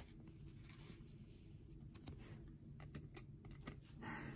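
Faint handling noise of trading cards: a few soft clicks and scrapes as a card is handled and set on a display stand, mostly in the second half.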